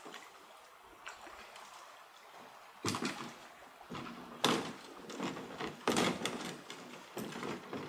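A canoe being swung down from a portager's shoulders and set on a rocky shore: a series of sudden knocks and scrapes from the hull, starting about three seconds in, the loudest around the middle.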